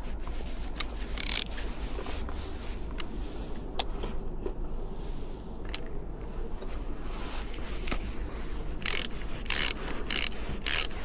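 Socket ratchet clicking in repeated strokes as a bolt is run in and tightened until snug, with the strokes louder near the end.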